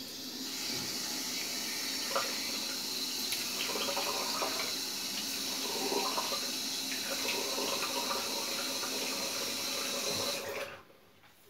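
Tap water running into a sink while someone washes their face, with irregular splashing of the hands. The tap shuts off abruptly near the end.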